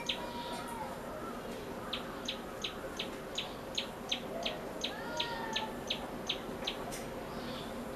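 Common tailorbird calling: a loud, sharp, high note repeated about three times a second, starting about two seconds in after a short pause.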